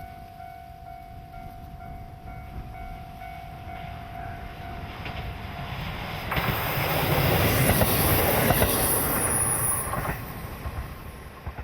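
Level-crossing warning bell ringing in a steady repeating pattern. About six seconds in, a train passes over the crossing with a loud rush and rattle of wheels on the rails, then fades toward the end.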